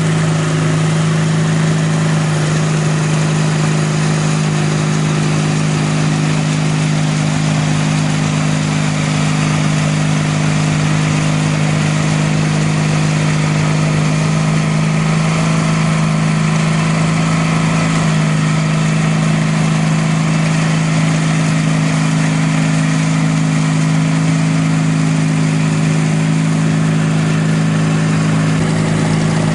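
Sears Roper GT18 garden tractor's 18 hp Briggs & Stratton horizontal twin running at a steady speed, driving a 42-inch shaft-driven snowblower through deep snow. The engine note holds even throughout, under a constant rushing of the blower and thrown snow.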